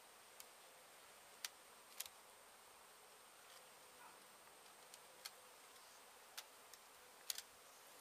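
Faint buzzing of honey bees, with a handful of sharp, irregular clicks.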